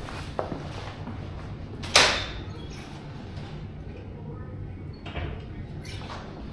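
A single loud knock about two seconds in, over a steady low hum, with a few fainter clicks around it.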